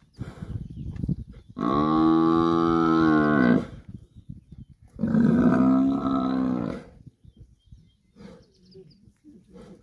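A bull Cape buffalo, pinned down by lions, bellows twice in distress. Each is a long, moaning call of about two seconds, with a second of quieter rustling between them.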